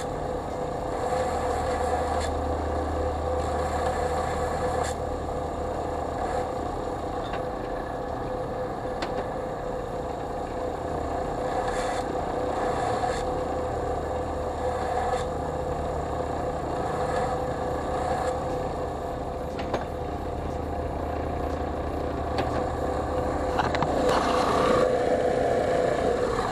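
Central Machinery 4 in. x 36 in. belt / 6 in. disc sander's 3/4 hp electric motor running, a steady hum with a higher whine over it, a little louder in the last few seconds.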